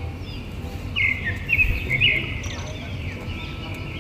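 Small birds chirping in quick, repeated short calls, loudest between one and two seconds in. Soft low thumps come from a plastic Godzilla figure being handled.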